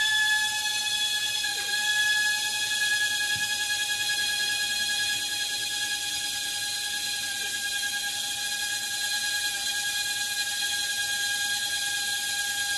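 Gakken maple drone, a one-bladed toy rotorcraft, its small electric motor running with a steady high-pitched whine while it spins. The whine sags slightly in pitch over the time.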